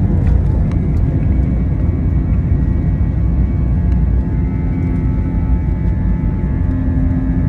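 Jet airliner engines running with a loud, steady rumble and a steady whine over it.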